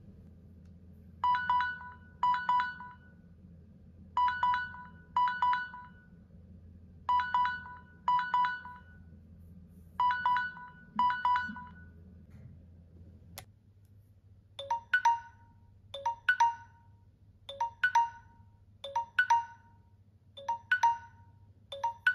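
Two smartphone alert tones in turn: first a bell-like alarm chime played in pairs, a pair about every three seconds, which stops about 12 s in; after a short click, a Samsung Galaxy S9's timer-expired alert starts, a short low pip followed by a higher chime, repeating about every second and a half.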